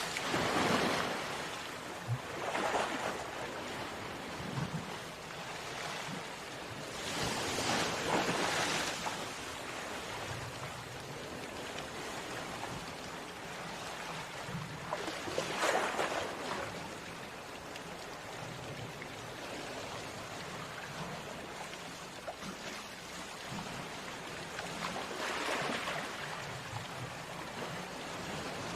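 Ocean surf: a continuous rush of waves breaking on a shore. Separate breakers swell up and die away several times, at the start and again about 8, 16 and 25 seconds in.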